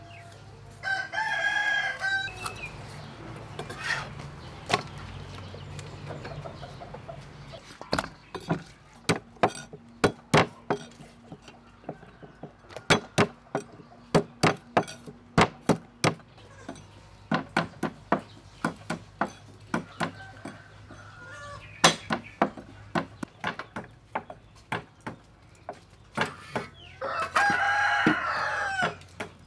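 A rooster crowing twice, about a second in and again near the end. Between the crows comes a long run of sharp knocks from a cleaver striking a wooden chopping board.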